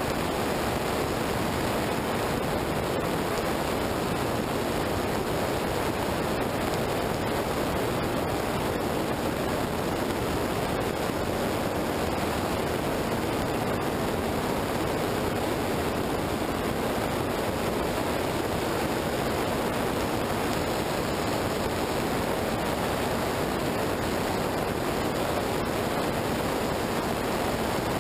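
Steady rush of wind and tyre noise from a vehicle travelling at speed on a wet road, picked up by a camera mounted low beside the wheel, with a faint steady hum underneath.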